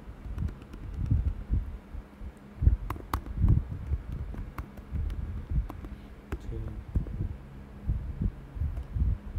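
Typing on a computer keyboard: irregular soft low thuds and light clicks of keystrokes, with a faint steady hum beneath.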